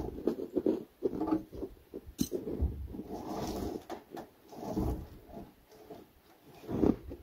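Sawn lumber being handled and loaded, with irregular wooden knocks and scraping and one sharp clack about two seconds in.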